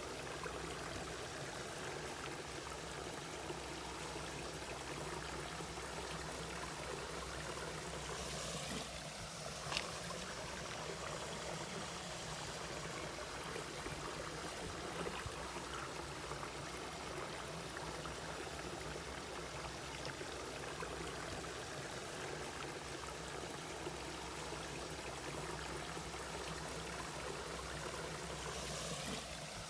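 A mountain stream running steadily over rocks, an even rush of water, with one brief sharper sound about ten seconds in.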